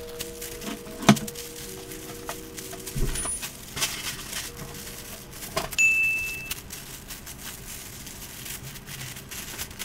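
Thin tissue wrapping paper crinkling and rustling as it is folded and bunched in the hands, in irregular short bursts. Soft background music runs underneath, with a brief high ding about six seconds in.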